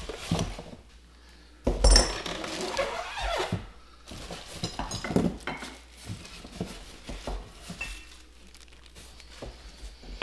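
Stainless steel meat grinder parts clinking and knocking as they are lifted out of the box and set down on a tabletop, with cardboard and packaging rustling. A loud knock about two seconds in.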